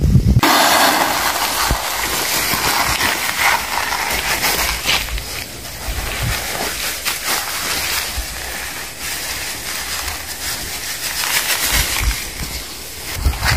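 Granular chemical fertilizer poured from a plastic sack into a plastic bucket: a continuous hiss of falling granules with crackling and rustling of the sack, starting about half a second in.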